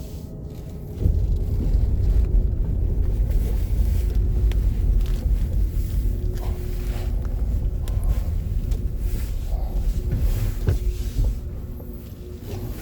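A vehicle running, its low rumble starting abruptly about a second in and easing off near the end.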